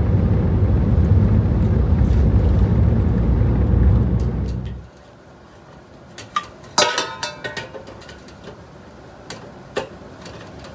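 Steady low rumble of a vehicle driving at highway speed, heard from inside the cab, which cuts off about five seconds in. Then a few light metallic clanks and clicks as a stainless exhaust resonator with band clamps and flex pipe is handled on a concrete floor.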